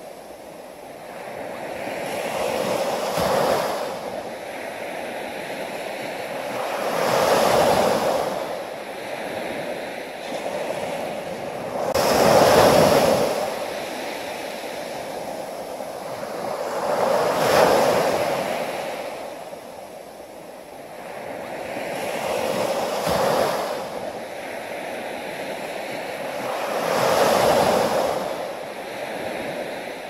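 Small waves breaking and washing up a sandy beach. Each surge swells and fades in a slow rhythm, roughly every five seconds.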